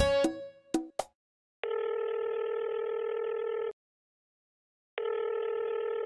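Telephone ringback tone heard down the line as a call is placed: two long, steady rings of about two seconds each, a little over a second apart, with the thin sound of a phone line. A few plucked guitar notes die away in the first second.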